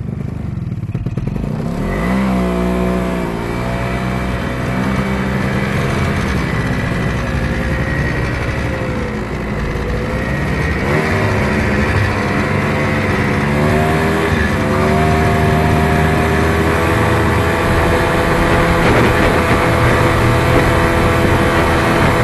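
Snowmobile engine pulling away about two seconds in, then running under way, its pitch rising and falling as the throttle changes and growing louder toward the end.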